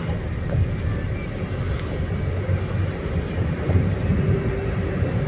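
Steady low rumble of a moving vehicle travelling along.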